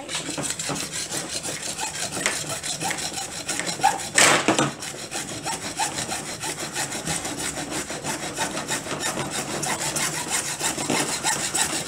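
Hand hacksaw cutting through white PVC pipe with quick, steady back-and-forth strokes, one stroke louder about four seconds in.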